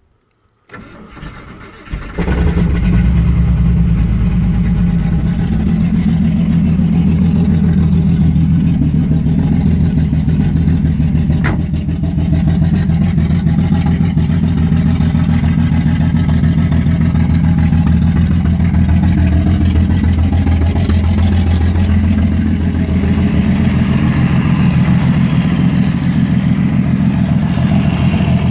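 1989 Ford EA Falcon's port-injected inline-six cranking on the starter, catching about two seconds in and then running steadily but roughly with a misfire. It only keeps running while the key is held in the start position with the starter motor still turning, a fault the owner suspects lies in the coil pack.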